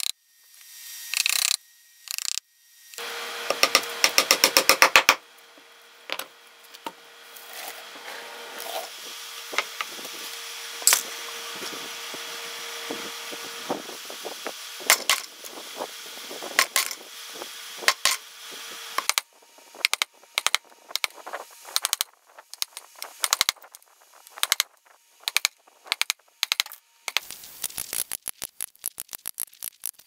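A chisel cutting into a log by hand: scattered taps, scrapes and cuts as wood is pared away, with a loud run of rapid strokes a few seconds in.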